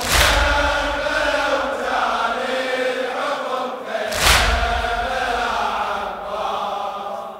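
A crowd of men chanting a Shia latmiya chorus in unison, with two heavy collective chest-beating strikes (latm), one at the start and one about four seconds later.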